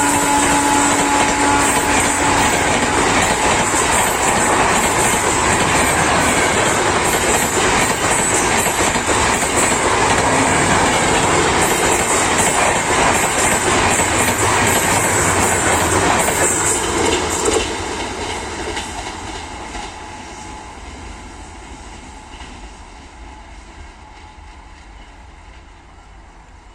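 An Indian Railways train passing close by at speed: its horn sounds for the first couple of seconds, then a loud rumble and clickety-clack of wheels over rail joints. Around 17 seconds in the sound drops away sharply as the last coach passes, then fades steadily.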